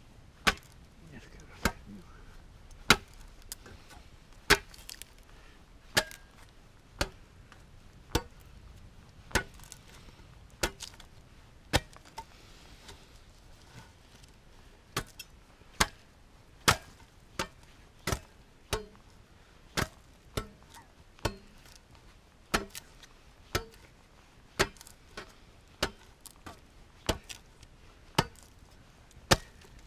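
A long handsaw swung as a cleaver, hewing into a wooden log: sharp chopping strikes about once a second, with a short pause about halfway through.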